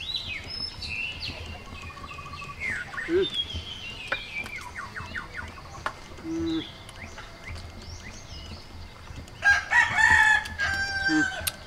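Small birds chirping through the background, then a rooster crowing loudly near the end: one long crow of about two seconds.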